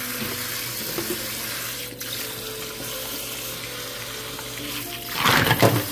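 Tap water running into a sink as raw hard clams are rinsed, with a louder burst of splashing about five seconds in.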